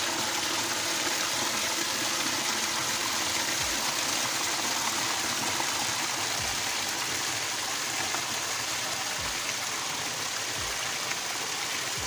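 Water rushing and splashing over boulders in a small waterfall, a steady, even rush that starts and stops abruptly.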